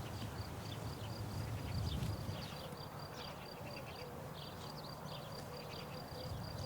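An insect chirping in a high, evenly pulsed trill, with scattered short chirps over a low rumble.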